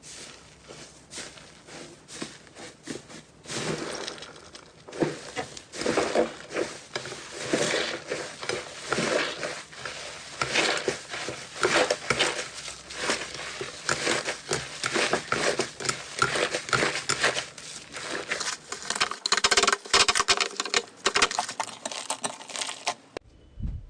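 Slime being squeezed and poked by hand: a dense run of sticky clicks and crackling pops, busier and louder after about four seconds, stopping abruptly near the end.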